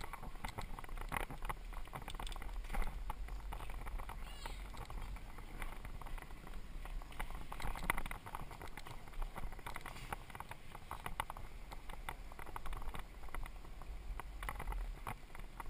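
Mongoose mountain bike being ridden over pavement: a steady low wind rumble on the microphone with frequent irregular clicks and rattles from the bike.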